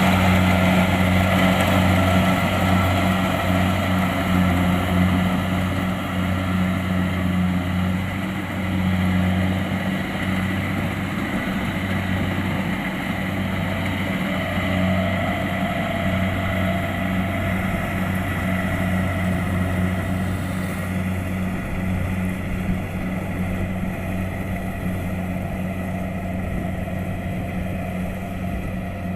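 Kubota DC-70 Plus rice combine harvester running steadily, its diesel engine giving a deep, even hum under a wide mechanical hiss. The upper hiss falls away suddenly about two-thirds of the way through.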